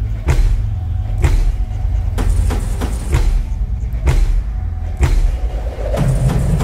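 Background music with a deep, steady bass and a slow, even beat, a hit about once a second.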